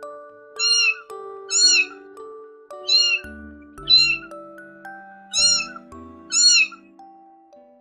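A kitten's high meows, six short calls in three pairs, each rising and falling in pitch, over light background music.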